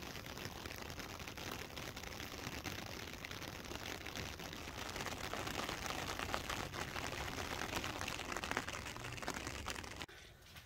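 Rain falling on rocks and dry scrub: a steady hiss of many small drop ticks that stops abruptly near the end.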